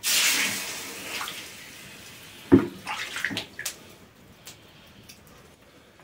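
Loud sizzling hiss from a forge-heated steel dog-bone splint where it meets the recycled-plastic beam. It starts suddenly and dies away over about two seconds. A few short knocks follow about halfway through.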